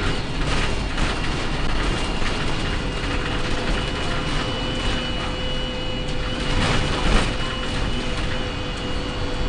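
Inside a moving Alexander Dennis ALX300 bus on a MAN 18.220 chassis: steady engine and road rumble with a thin, steady high whistle over it, plus a few knocks and rattles, the loudest a little after seven seconds.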